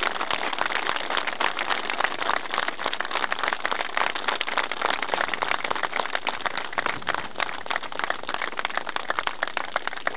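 Crowd applauding, a dense clatter of clapping that thins out toward the end.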